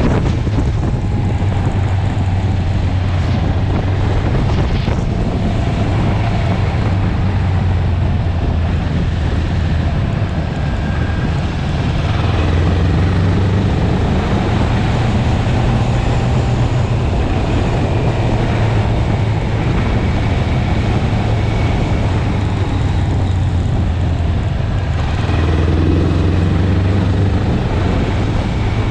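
Wind rushing and rumbling over the microphone of a 650cc sportbike at road speed, with the engine running underneath at a fairly steady pitch. It gets slightly louder about twelve seconds in.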